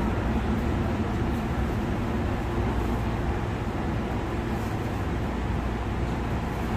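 Steady low rumble and hum of an MTR train, with no chime or announcement.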